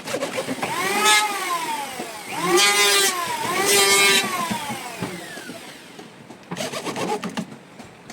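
An engine-like revving sound, rising and falling in pitch three times, followed by a short rough rattling burst near the end.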